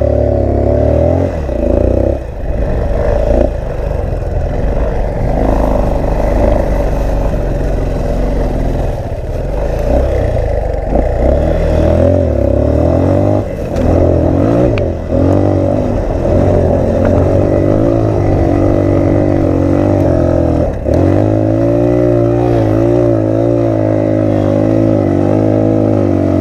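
Off-road motorcycle engine running hard under load, revs rising and falling as it works up a hill, with a few brief drops in revs. Wind buffets the microphone throughout.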